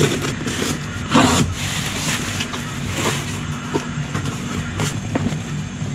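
A utility knife slicing packing tape on a cardboard box, then the cardboard flaps being pulled open and the packing peanuts inside rustling. There are several short scraping and ripping sounds, the loudest about a second in, over a steady low hum.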